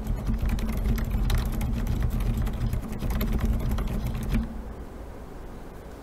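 Fast typing on an FL-Esports OG87 mechanical keyboard with stock FL Silent Grey Snow silent switches, its foamless plastic case giving hollow, thuddy keystrokes. The typing stops about four seconds in, leaving a faint steady hiss.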